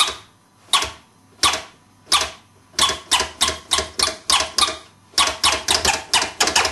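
Stab scratches: a vinyl record on a Technics turntable is pushed forward in quick strokes while the channel fader flicks open for a split second, giving short, sharp, high-pitched bursts with no reverse sound. They start slow, about one every 0.7 s, then come about three a second, with a brief break about five seconds in.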